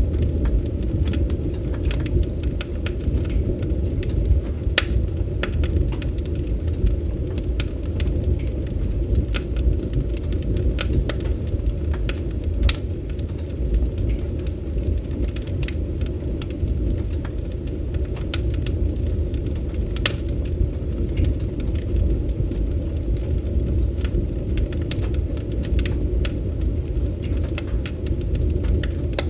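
Wood fire burning: a steady low rumble of flames with frequent, irregular sharp crackles and pops.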